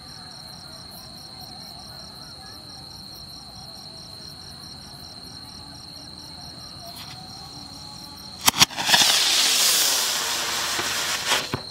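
Crickets chirp steadily. Then a large firework rocket goes off: two sharp cracks, a loud rushing hiss for about three seconds as it climbs, and another sharp crack near the end.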